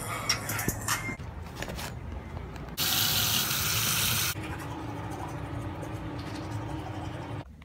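Bathroom sink tap running water over a toothbrush for about a second and a half, then quieter scrubbing of teeth being brushed, which cuts off suddenly near the end.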